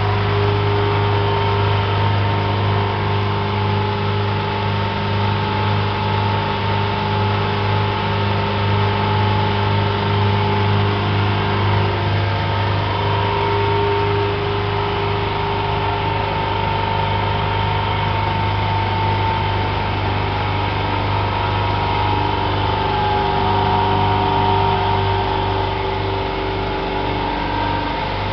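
Tractor-powered pneumatic grain conveyor running steadily under load: a constant engine hum with a steady blower whine over a rushing hiss.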